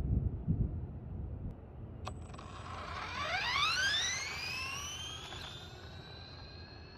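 Brushless electric motor of a modified 1/14-scale RC car whining as it speeds up. The pitch rises quickly, then levels off and fades. A sharp click comes about two seconds in, after a low rumble in the first second.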